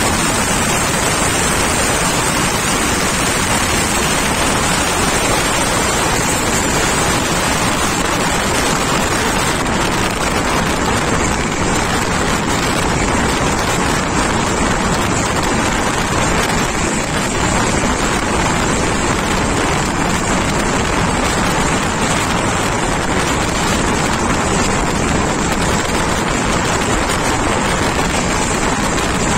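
Steady running noise and wind rush of an Indian Railways express passenger train moving at speed, heard from inside a coach. It is an even, loud roar with no distinct clacks or tones.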